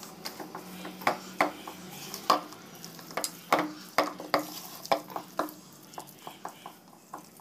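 Hand mixing whole small fish through a thick wet masala paste in a pan, rubbing in the marinade: irregular wet squelches and soft knocks, about three a second, thinning out near the end.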